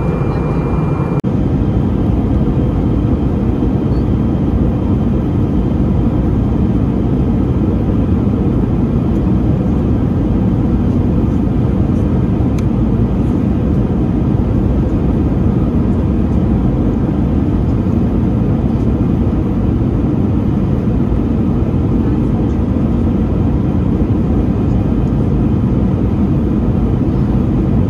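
Steady cabin noise of an Airbus A320 in flight, heard from a window seat beside the wing: the low, even rumble of the jet engines and airflow. A faint high tone stops about a second in.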